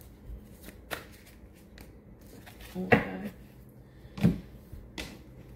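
Handling sounds at a table: a few light taps and knocks, with two louder thumps about three and four seconds in. These come from a card deck being picked up and handled.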